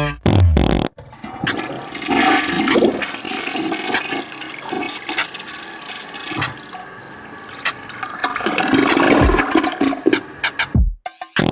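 Toilet flushing: a long, even rush of water that starts about a second in, swells near the end and then stops.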